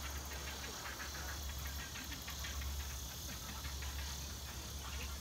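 Steady chirring of insects, with a constant low hum underneath.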